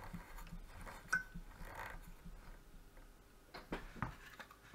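A few faint clicks and taps as the radiosonde's circuit board is moved about under the microscope: one about a second in, and three close together near the end.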